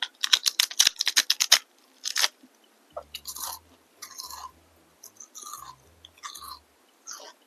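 Close-miked crunchy chewing: a quick run of about ten sharp crunches in the first second and a half, one more crunch a little later, then softer, wetter chewing.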